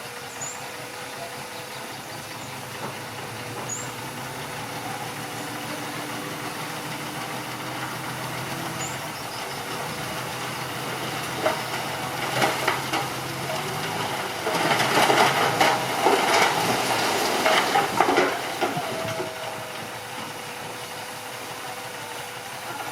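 Mitsubishi BD2H bulldozer's diesel engine running steadily. About halfway through comes a louder stretch of some six seconds, full of sharp cracks over a rushing noise, as the pushed tree breaks and its branches give way.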